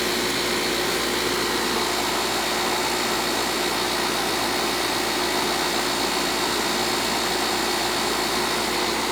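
Air-conditioning system running: an even, steady rush of fan noise with a faint steady hum of tones underneath, unchanging throughout.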